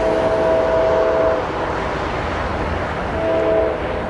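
Diesel freight locomotive air horn sounding for a grade crossing as the train approaches: a sustained chord cuts off about a second and a half in, followed by a short blast near the end, part of the long-long-short-long crossing signal. Underneath is a steady low rumble from the approaching locomotives.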